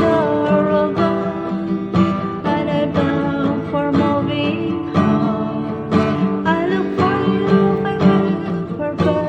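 Acoustic guitar strummed in a steady rhythm, about one stroke a second, with a singing voice over it.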